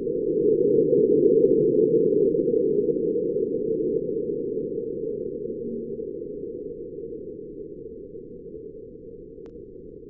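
Sonified seismometer recording of a marsquake from NASA's InSight lander, sped up to be audible: a deep rumble that swells over the first two seconds and then slowly fades away.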